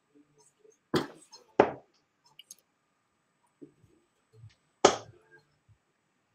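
Three sharp knocks in a small room: two about half a second apart near the first second, and a louder one near five seconds.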